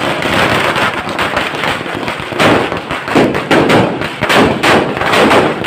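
A string of firecrackers going off in rapid, continuous crackling bangs, with louder clusters of bangs every second or so.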